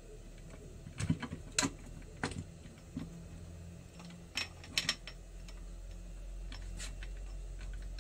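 Metal clicks and clinks of steel gearbox shafts and gears being seated by hand into a D50B0 engine's aluminium crankcase half: several short sharp taps spread through, a pair of them close together about halfway. A low steady hum sits underneath and swells in the second half.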